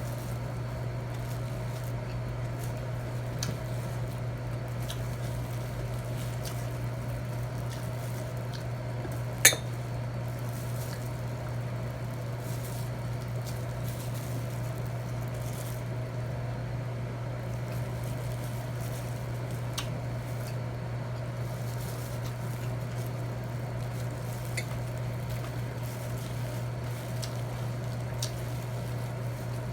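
Cutlery clinking on a plate and soft eating sounds over a steady low hum, with scattered light clicks and one sharp clink about a third of the way in.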